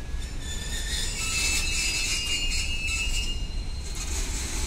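Goods train's covered wagons rolling past on the rails, a steady low rumble of wheels, with a high metallic wheel squeal joining about a second in and fading out near four seconds.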